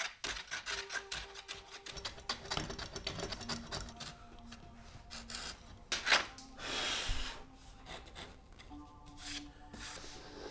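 A steel hand-tool edge scraping and shaving across mahogany in many quick strokes. The strokes come thick at first, then thin out, with one longer stroke a little past the middle. Background music with held notes plays under the strokes.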